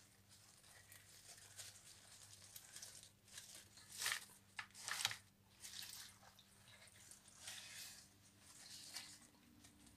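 Faint, intermittent rustling and squishing of wet amaranth leaves being handled in a plastic basin, with a few louder rustles about four and five seconds in.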